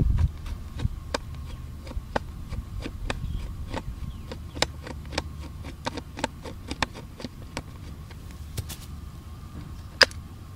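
Handling noise from a handheld camera held close to a mower deck: irregular sharp clicks and taps, about two or three a second, over a low rumble, with one loud sharp click near the end.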